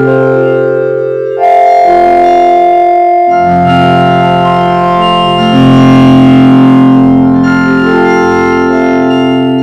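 Cartoon audio run through a 4ormulator effect, which turns it into loud, held synthesizer-like chords. The chords change pitch every second or two, with a short dip and a sudden re-entry about a second and a half in.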